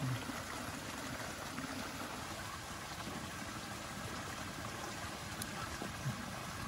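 Steady, even rushing background noise with no change through the stretch, with a brief low murmur at the start and another about six seconds in.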